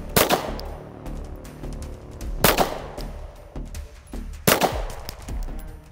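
Three handgun shots, slow and evenly spaced about two seconds apart: deliberate aimed fire for a zeroing group. Background music plays underneath.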